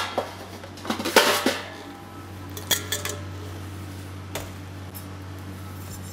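Stainless steel bowls and a mesh sieve clattering as they are set down and handled on a steel worktop: a few metallic knocks with a little ringing, the loudest about a second in, over a steady low hum.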